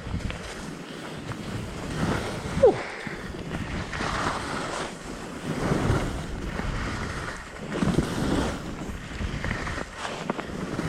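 Skis scraping over snow in a run of turns, the scrape swelling about every two seconds, with wind buffeting the action camera's microphone. A short falling squeak nearly three seconds in.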